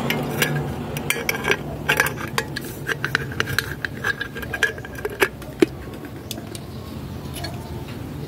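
Small sharp clicks and clinks of a halogen headlight bulb and its metal retaining parts being fitted into a plastic motorcycle headlight housing by hand. The ticks come thick in the first few seconds and thin out after about six seconds.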